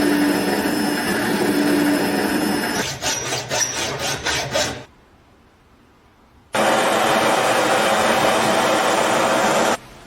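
A power tool working on the metal of a rusty lock, running steadily, then in uneven strokes. It stops about five seconds in and starts again about a second and a half later.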